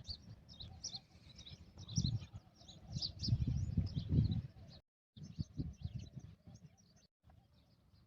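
Small birds chirping in many short, quick calls over an uneven low rumble that swells twice and then fades. The sound cuts out briefly twice.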